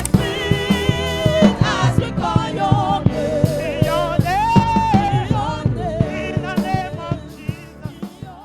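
Gospel music: singing voices with vibrato over a steady drum beat, fading out near the end.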